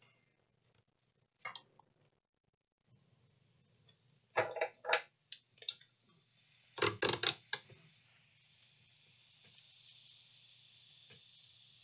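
Small metal tools handled on a workbench: a short knock, then two quick clusters of clinks and clatters. A faint steady hiss sets in near the end.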